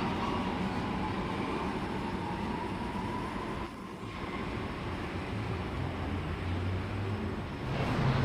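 Sydney Metro Alstom Metropolis driverless train pulling out of the station: steady wheel and body rumble with an electric traction-motor whine rising slowly in pitch as it gathers speed.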